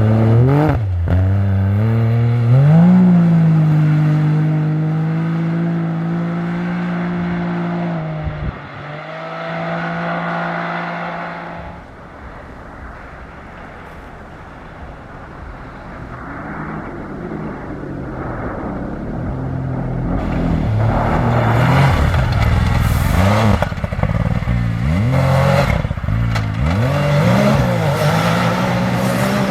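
Rally-raid competition vehicle's engine accelerating hard, pitch climbing and holding between gear changes, then fading. About two-thirds of the way in, another engine comes in louder with repeated rising and falling revs as the driver works the throttle and gears.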